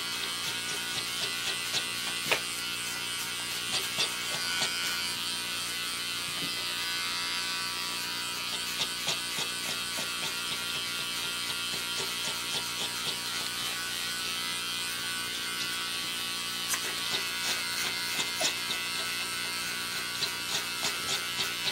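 Electric pet hair clipper running steadily as it is drawn through a dog's fur, a constant motor buzz with scattered short ticks that come more often near the end.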